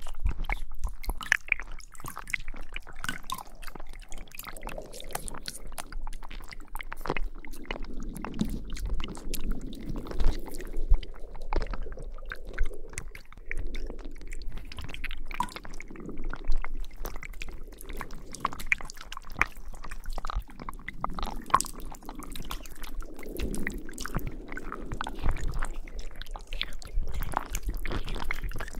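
Slime being squished as an ASMR sound effect: a dense run of small wet clicks and sticky crackles over slow squelching swells.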